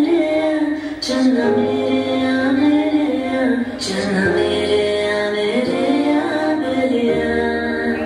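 Bollywood romantic song playing: a woman's voice singing long, gliding held notes, with two short sharp accents about one and four seconds in.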